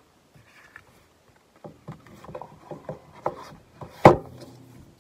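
Plastic Blu-ray case and cardboard slipcover being handled, with rubbing and small clicks, then a single sharp knock about four seconds in.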